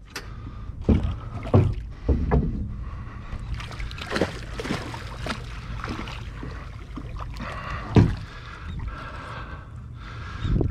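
A hooked tarpon thrashing at the surface beside a boat: water splashing and sloshing, with several dull knocks, the loudest about eight seconds in.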